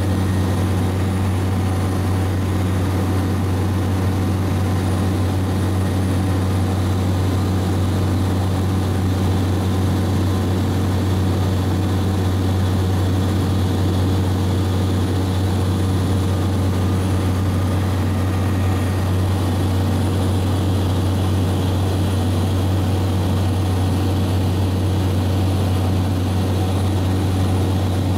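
Steady drone of a light propeller aircraft's engine and propeller heard inside the cabin in cruise: a strong low hum with a few steady higher tones over it, unchanging throughout.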